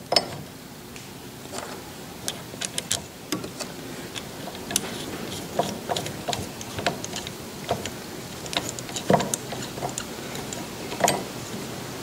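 Small metal clicks and clinks from Atlas lathe change gears, washer and nut being handled as a gear is fitted onto the change-gear quadrant and its nut is spun on by hand. Scattered light ticking throughout, with a few louder clinks: one at the start and two in the last few seconds.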